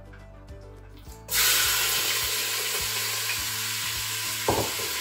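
Raw chicken pieces hitting hot sesame oil in a Crockpot Express pressure cooker's inner pot on its brown/sauté setting: a sudden sizzle starts about a second in and goes on as a steady frying hiss.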